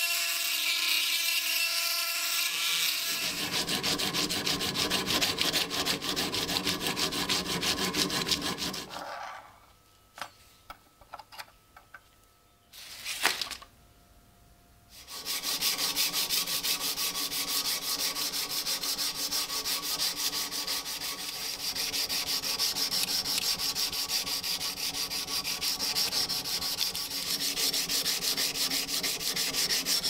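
A rotary tool with a felt polishing bob runs against the steel blade and stops about 3 seconds in. Later a flat sharpening stone is rubbed back and forth along the clamped blade in rapid short scraping strokes, after a pause broken by a few small knocks.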